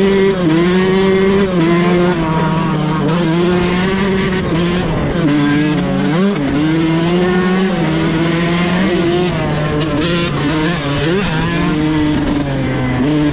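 Yamaha dirt bike engine running under throttle as the bike is ridden over a dirt track. Its pitch rises and falls with throttle and gear changes, with a sharp dip and recovery about six seconds in.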